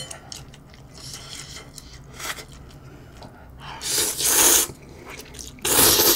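A person slurping instant ramen noodles: two long, loud slurps, the first about four seconds in and the second near the end.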